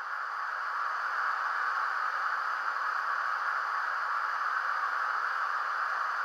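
Steady, even hiss, strongest in the upper-middle range, with no distinct events or changes.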